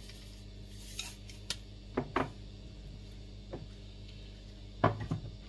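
A few light clinks and knocks of kitchen utensils against a cooking pot, over a steady low hum. The loudest knocks come near the end.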